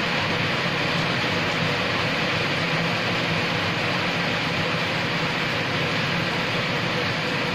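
Steady rain falling on wet brick paving, an even hiss that does not let up.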